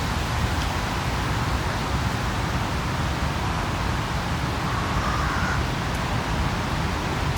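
Steady outdoor city ambience: a constant hiss over a low rumble of distant traffic. A brief faint higher tone sounds about five seconds in.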